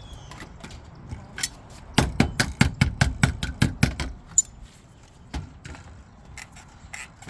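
Hand tools working copper roofing sheet: a quick run of sharp metallic clicks, about five a second for some two seconds, with a few single clicks before and after.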